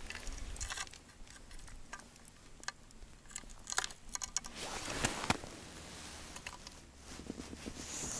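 Handling noise: scattered light clicks and taps, thickest in the middle, with a short swish about five seconds in and fabric rustling against the microphone near the end.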